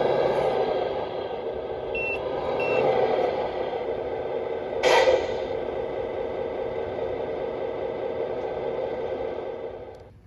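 Electric drive of a radio-controlled construction model running with a steady whine, giving two short high beeps early on and a single clatter about halfway, then stopping abruptly near the end.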